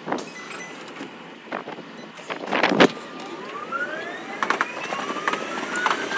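Electric commuter train's traction motors whining in a rising pitch from about halfway through, as the train accelerates. Underneath are running noise and repeated clicks from the wheels on the rails, with a loud clatter about two and a half seconds in.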